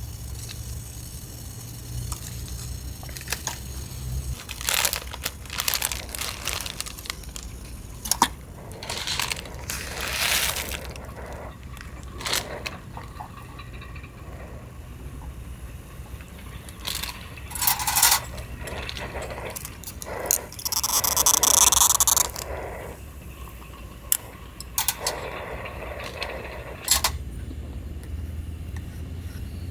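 Irregular clinks, scrapes and rustles of small hard objects, some metallic, being handled, with a longer scraping stretch past the middle. A low steady rumble underlies the start and the end.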